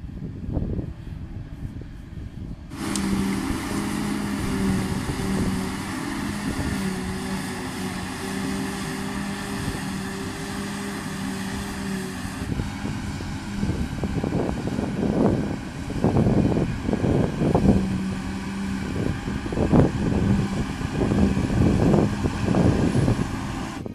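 Claas Jaguar 850 forage harvester and its tractors working in heavy grass, a steady machine hum with a held note, under strong wind buffeting on the microphone. The sound changes abruptly about three seconds in and again near the middle, and the wind gusts get heavier in the second half.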